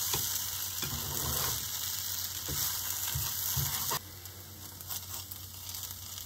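Oil sizzling in a frying pan under a crêpe-galette, with a plastic spatula scraping at batter stuck fast to the old pan for about the first four seconds. About four seconds in the scraping stops and the sizzle turns quieter.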